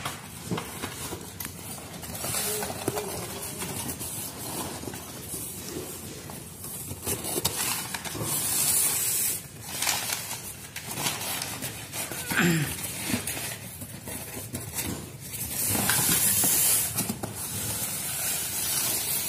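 Packing material being handled: cardboard box flaps, crumpled paper and plastic bubble wrap rustling and crinkling, in irregular bursts with louder stretches of crinkling about eight and fifteen seconds in.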